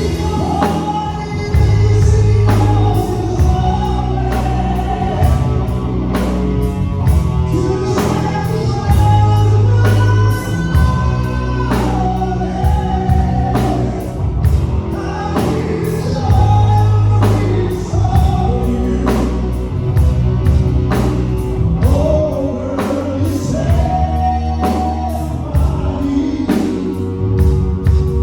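Live band music with a singer: a lead vocal bending and holding long notes over a steady drum beat, bass and keyboard.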